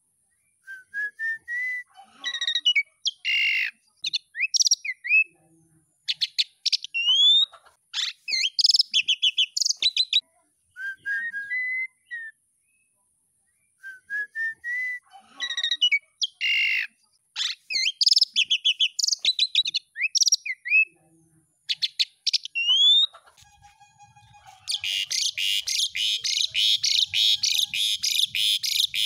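Asian pied starling (jalak suren) singing: a run of rising whistled notes, sharp clicks and squeaky chatter, with the same phrase coming round twice. In the last few seconds it breaks into a dense, fast, harsh rattling chatter.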